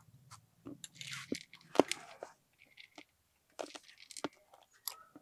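Close crunching and chewing of a hot, crispy jhal chana snack as it is bitten into. A series of sharp, irregular crunches, loudest about two seconds in.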